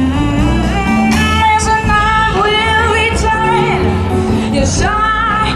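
Live jazz band with a singer performing over the stage's amplified sound system. The melody wavers over bass notes that step from pitch to pitch.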